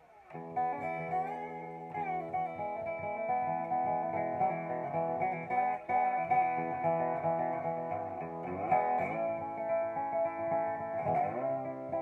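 Dobro resonator guitar played lap-style with a steel bar and fingerpicks: picked notes over ringing chords, starting with a fresh chord just after the start, with the bar sliding up into new notes a few times near the end.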